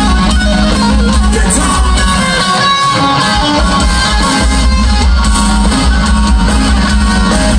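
Live rock band playing loud and amplified, electric guitars over bass and drums. The deep low end thins out briefly for a couple of seconds in the middle, then comes back in full.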